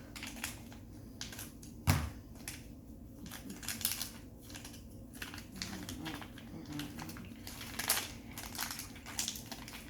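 Toy packaging rustling and crinkling as a small item is dug out of a box and unwrapped, with irregular handling clicks and one sharp knock about two seconds in.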